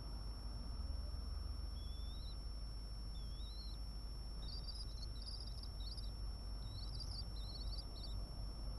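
Swift chicks in a nest box giving thin, high, wavering calls: a short one about two seconds in and another about three seconds in, then a run of quick chirps through the second half. A steady high electronic whine and a low hum run underneath.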